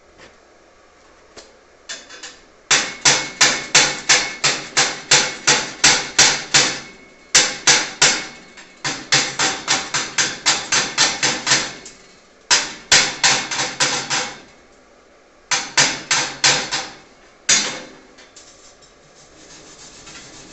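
Chipping hammer knocking slag off a fresh stick-weld bead on thin 2 mm steel plate. Quick sharp metallic taps come about three a second in several bursts with short pauses, and the plate rings under the blows.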